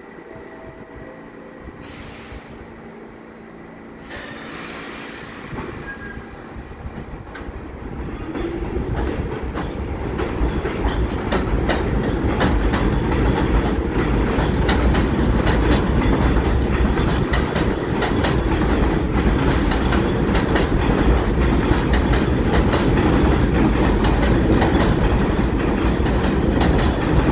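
R46 subway train pulling out of an elevated station: a low steady hum at first, then a rumble that builds over several seconds into a loud, steady roll of wheels on the rails with rapid clicking over the rail joints as it gathers speed.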